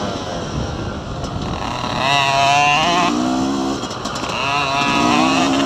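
Dirt bike engine heard from on board: revving up and holding, dropping back about three seconds in, then climbing again near the end.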